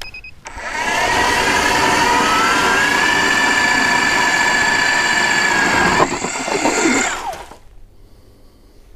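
StrikeMaster battery-powered ice auger drilling a hole in the ice. The motor spins up with a whine about half a second in and runs steadily. About six seconds in its pitch wavers and slides down, and it stops about a second later.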